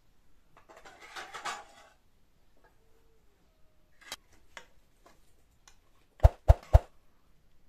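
Dish-handling sounds: a scraping rustle about a second in, a couple of light clicks of a metal spoon on dishes, then three quick loud knocks of the metal spoon against the cooking pot near the end.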